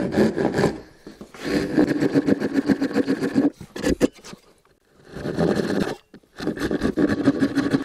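Japanese pull saw cutting across the grain of a spruce board by hand for finger joints: fast rasping saw strokes in several runs, broken by short pauses where the saw is lifted and set again.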